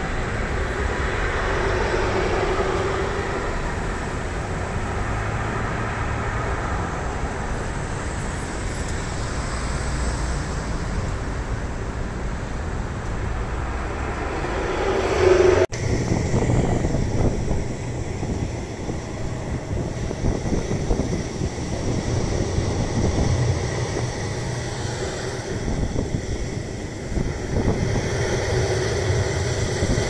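Street traffic noise: a steady wash of passing road vehicles, with one vehicle growing louder and peaking just before the sound cuts off abruptly about halfway through. After the cut a gustier, rumbling outdoor sound with wind buffeting the microphone takes over.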